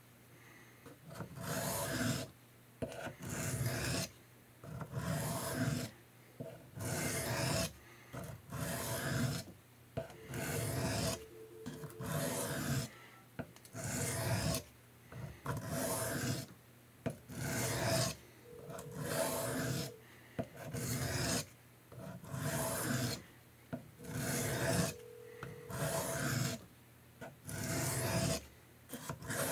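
The steel blade of a German army knife stroked back and forth across a sharpening stone: a rasping stroke about once a second, each with a short pause.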